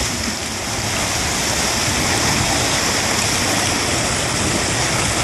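Moving river ice during spring breakup: broken ice slabs grinding and scraping against each other and the bank as the ice sheet moves downstream, a loud, steady rushing noise.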